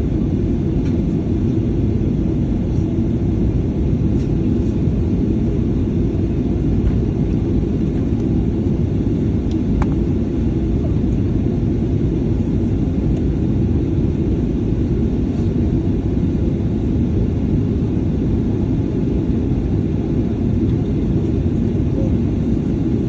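Steady low rumble inside the passenger cabin of a Boeing 737-800, from its CFM56 engines and airframe while the plane moves on the ground before takeoff.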